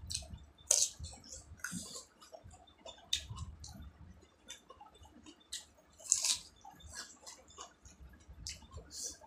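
Eating sounds: a crisp bite into a raw cucumber slice about a second in, then crunching, wet chewing and lip smacking of a mouthful of rice eaten by hand, full of short sharp crackles and clicks.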